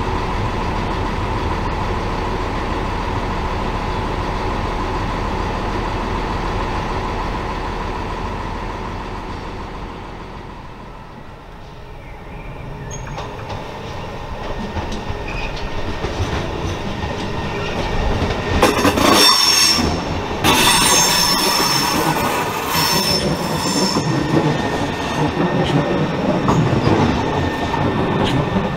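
Electric multiple-unit trains at a station platform. First a classic 1960s SNCB electric unit runs in with a steady hum. Then an Arriva Stadler FLIRT approaches and passes close by: its wheels squeal loudly and high-pitched for several seconds, followed by the rumble of the train running past.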